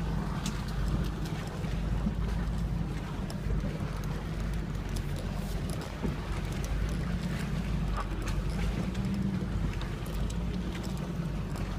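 Toyota Land Cruiser HDJ80's turbo-diesel straight-six running steadily as the truck drives along a rutted forest track, with scattered clicks and knocks from the body and tyres over the rough ground.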